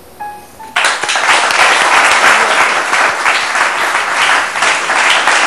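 Studio audience applauding, starting suddenly under a second in and holding steady.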